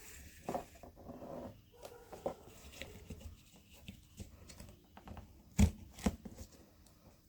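Cardboard being handled and worked by hand, with rustling and scraping and scattered light clicks. Two sharp knocks near the end are the loudest sounds.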